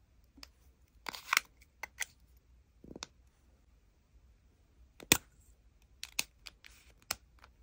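Plastic lipstick and lip balm tubes being handled: scattered sharp clicks and taps, the loudest about five seconds in.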